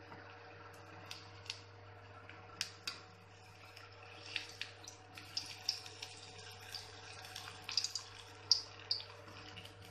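Batter-coated spinach leaves deep-frying in hot oil in a kadhai: a steady sizzle with frequent sharp crackles and pops, the sharpest about eight and a half seconds in.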